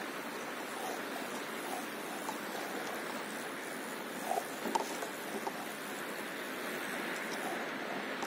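Small waves lapping against a paddleboard on calm sea, a steady soft wash of water, with a few light splashes about halfway through.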